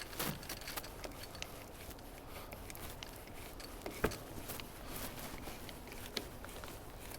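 Small worm-drive hose clamp being tightened around the frame: faint scattered clicks and ticks, with one sharper click about four seconds in.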